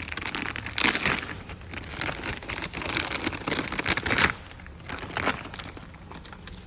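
Crinkling and rustling of packaging with small knocks as a credit card reader is handled, busiest for the first four seconds and then quieter.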